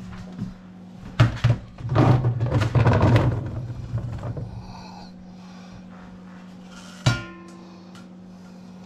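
Knocks from a metal steamer pot, then parboiled new potatoes tipped from its perforated insert into a plastic bowl in the sink, clattering and splashing for a couple of seconds before fading. A single sharp clank of the pot near the end.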